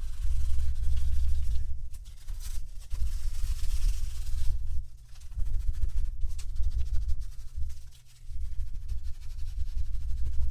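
Hand sanding with 220-grit sandpaper on vinyl to scuff off the shiny glaze before gluing: scratchy rubbing strokes over a low rumble, pausing briefly about every three seconds.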